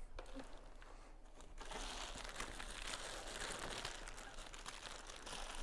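Clear plastic film crinkling as it is handled, starting about one and a half seconds in and continuing as a dense, steady crackle, after a few faint clicks of handling.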